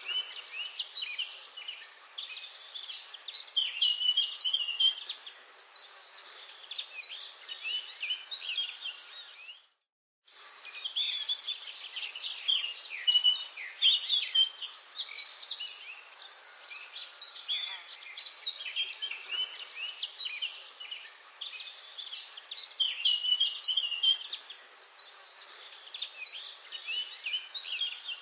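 Dense chorus of birds chirping and twittering, with many quick overlapping calls, cutting out briefly about ten seconds in.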